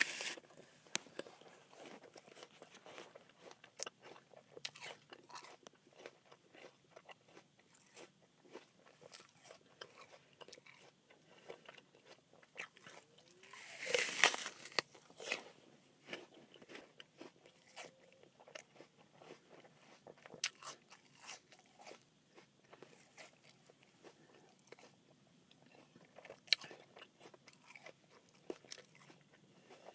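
Someone biting into and chewing a crisp, crunchy apple: a loud crunching bite at the start and another about halfway through, with steady smaller chewing crunches in between.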